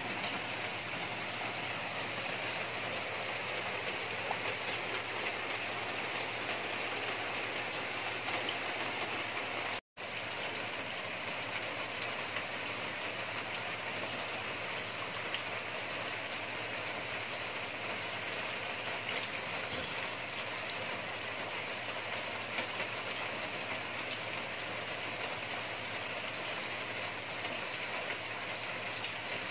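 Steady rush of water splashing into a koi pond from an inflow or small waterfall, with a low hum underneath. The sound cuts out for an instant about ten seconds in.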